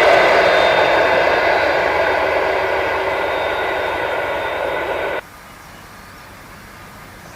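TEP70 diesel locomotive passing under power: a loud engine sound with a whine of several steady tones, slowly fading. About five seconds in it cuts off suddenly, and a much quieter, even rumble of the train remains.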